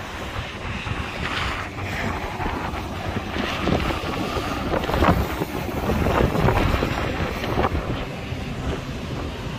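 Gusty wind buffeting the microphone, with highway traffic going by; the noise swells to its loudest around the middle as a lorry passes.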